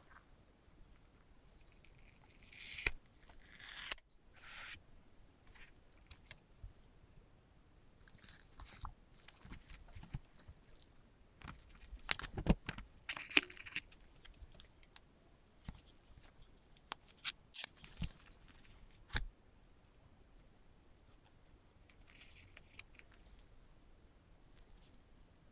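Close-up sounds of gloved hands opening an Apple Watch box: a paper tear strip ripping about two to four seconds in, then cardboard and paper rustling and sliding with sharp taps and clicks as the inner tray and leaflet are handled. Near the end there is softer rustling as the watch is lifted out in its protective wrap.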